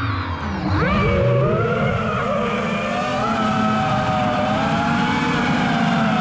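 Brushless motors and propellers of an FPV freestyle quadcopter whining, heard from on board. The pitch dips, sweeps up sharply about a second in as the motors spin up, then holds fairly steady with slight wavering.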